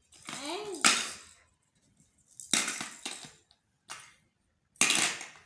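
Plastic toy fruit being cut apart with a toy knife: a few separate sharp clacks and short rasps of plastic, spaced about a second apart.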